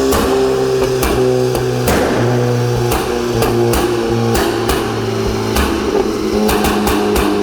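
Volkswagen Polo GTI engine running at low revs, its exhaust giving a string of sharp, irregular pops and crackles from a custom pops-and-bangs engine map.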